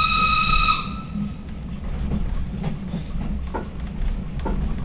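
A steam locomotive's whistle sounds one steady note and cuts off under a second in, leaving the low rumble of the train running along the rails with a few short knocks.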